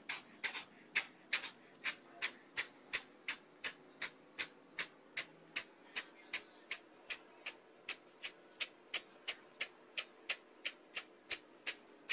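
Kitten with its mouth open making a quick, even series of short hiss-like sounds, nearly three a second.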